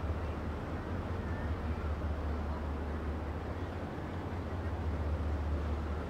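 The twin diesel engines of the Clyde S. VanEnkevort tug humming steadily as the tug-barge passes close by, with a low, even drone and a steady wash of water from the discharge jets splashing off the hull.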